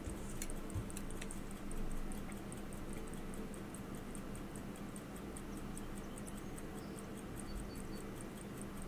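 Elgin pocket watch movement ticking in an even beat of about five ticks a second, running but not ticking strong, a sign that its power is still weak. A few sharper clicks come in the first second and a half.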